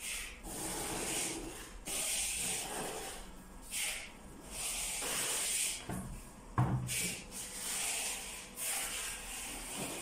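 Hands handling a plastic scent diffuser and pulling at the plastic tube on its outlet: irregular rubbing and scraping bursts, with one sharp knock about six and a half seconds in.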